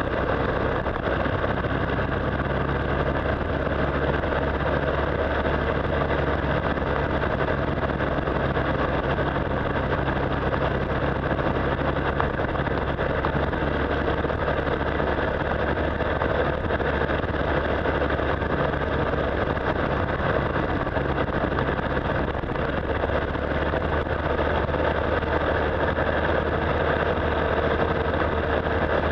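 Motorcycle engine running at a steady cruising speed, with a constant rush of wind and road noise over it.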